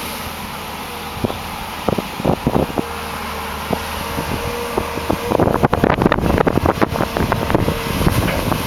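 The diesel engine of a Volvo EC210 excavator on an amphibious pontoon carrier runs steadily while the hydraulic arm works the bucket in the mud. A few sharp knocks come in the first seconds, and from about five seconds in a dense, irregular crackling sets in over the engine.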